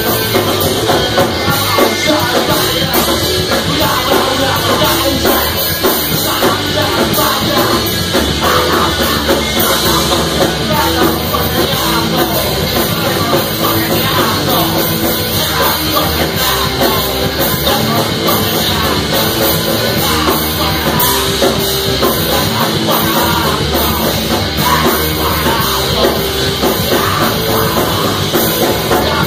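Punk rock band playing live: electric guitar, bass guitar and drum kit, with a singer shouting into a microphone, loud and unbroken.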